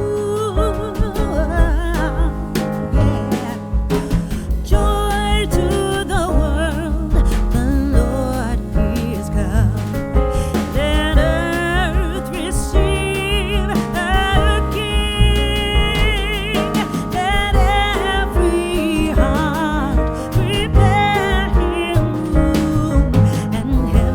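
Background music: a song with a singing voice over a steady bass beat.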